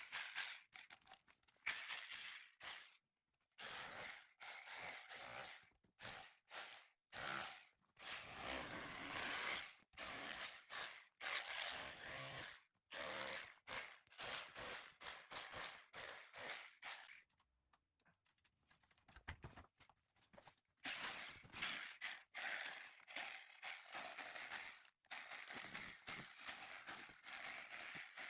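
Rapid rasping scraping strokes of hand-tool work on plaster, in short runs broken by brief pauses, with a longer pause a little past the middle.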